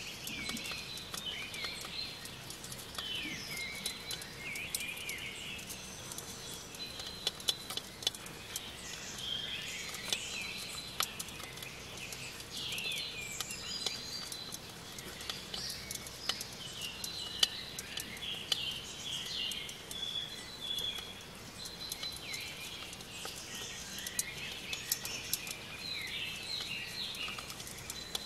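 Birds chirping and singing throughout, with short gliding calls repeated over and over. Many small ticks and scratches run along with them, fitting flower chafer beetles' claws clicking on a plastic tray.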